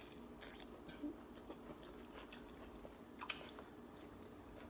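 Faint chewing of seafood-boil peanuts, with scattered small clicks of teeth and food; the sharpest click comes a little past three seconds in.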